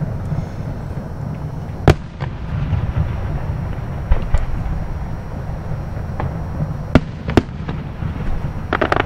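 Aerial fireworks bursting: a sharp bang about two seconds in, two more close together around seven seconds in, then a rapid crackle near the end, over a steady low rumble.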